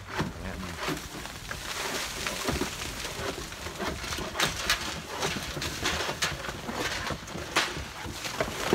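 Shingle tear-off on a roof: irregular scrapes and sharp knocks of the roofers' tools and loose shingles over a steady hiss, the knocks coming more often in the second half.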